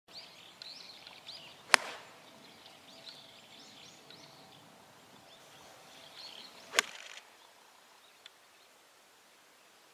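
Two crisp golf iron strikes on the ball, about five seconds apart, each a sharp click. Birds chirp faintly in the background.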